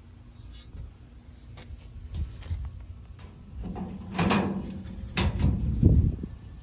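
Galvanized sheet-metal duct fitting being handled and shifted: a few light ticks, then heavier clanks and thuds of thin metal around four to six seconds in.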